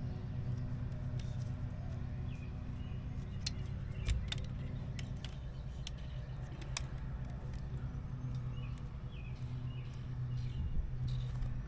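A steady low mechanical hum, with a cluster of sharp metallic clicks in the middle, about a second apart, and a few faint bird chirps near the end.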